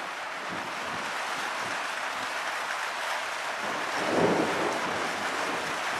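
Steady hiss of rain falling with wind during a thunderstorm, with a short louder low swell about four seconds in.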